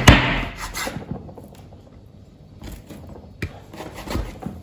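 Knife cutting pork ribs apart between the bones on a wooden cutting board: a sharp knock at the start, then scattered light taps and scraping of the blade and meat on the board.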